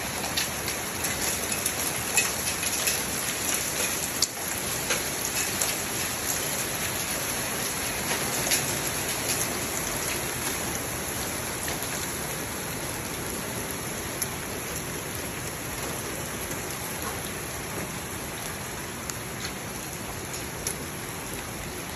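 Heavy rain and hail striking the roof of a pool enclosure: a dense, steady hiss with many sharp ticks of hailstones hitting, most frequent in the first half.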